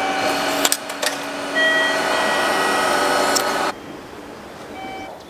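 Automatic ticket gate drawing a paper ticket through its slot: a steady mechanical whirr with a few clicks, cutting off suddenly after about three and a half seconds.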